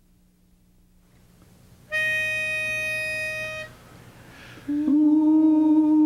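A pitch pipe sounds one steady reedy note for under two seconds, giving the barbershop quartet its starting pitch. A second or so later the four men come in on a held, hummed chord.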